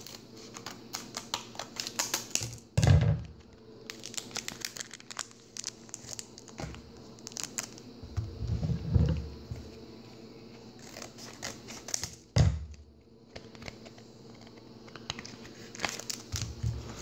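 Foil Pokémon booster pack being cut open with scissors and handled, the wrapper crinkling and rustling in quick small crackles. A few dull thumps, about 3, 9 and 12 seconds in, stand out as the loudest sounds.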